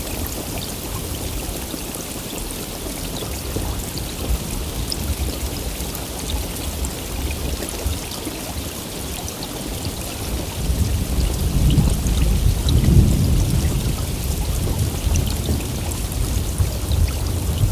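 Heavy rain falling steadily, with a low roll of thunder swelling about ten seconds in and fading a few seconds later.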